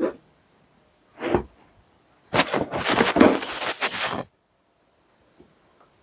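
White plastic storage box and its lid being handled on a wooden table: a knock at the start, another about a second later, then about two seconds of dense plastic clattering and knocking.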